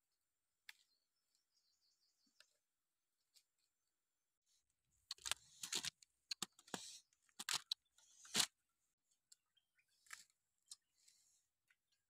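Rustling and crackling of twigs, leaves and fruit clusters being handled as fruit is picked and dropped into a woven basket, with scattered faint clicks and a burst of louder rustling from about five to eight and a half seconds in.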